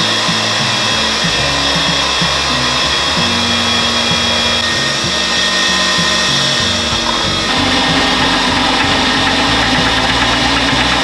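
A motor-driven machine running steadily at constant speed, like a power tool or blender, over background music.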